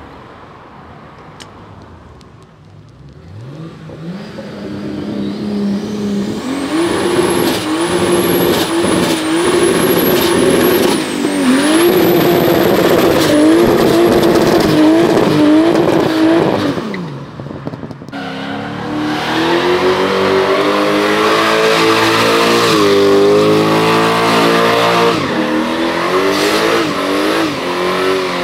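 A rear-wheel-drive car doing a burnout: the engine revs up and is held at high revs, dipping and rising again, while the spinning rear tyres squeal. After a break about two-thirds of the way in, the engine runs at high revs again, its pitch wavering.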